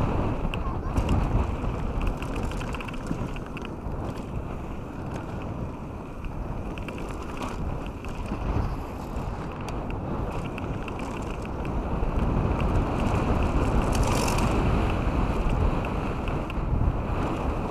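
Canyon Strive 8.0 enduro mountain bike descending a gravel trail: a steady rush of wind buffeting the camera microphone and tyres rolling over gravel, with scattered clicks and rattles from the bike. It gets louder again later, as speed picks up.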